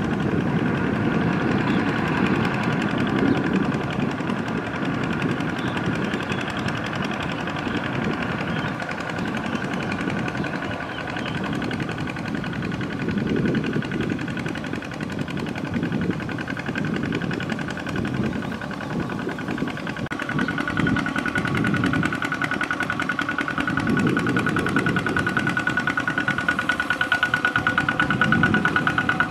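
Kubota ZT120 single-cylinder diesel on a two-wheel walking tractor, running steadily under load as its cage wheels churn through flooded paddy pulling a trailer. A fast, even firing pulse with a steady high tone, growing a little louder after about 20 seconds as it comes closer.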